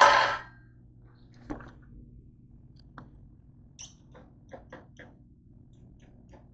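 Handling noise of a handheld camera being picked up and carried: a loud rustling knock at the start, then scattered light clicks and taps, over a low steady hum.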